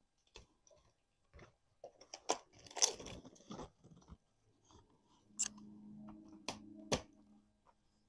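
Irregular cracks and crunches of a hand cutting tool breaking up a privet stump, the loudest near the middle and three sharp snaps late on. A low hum runs for about two seconds past the middle.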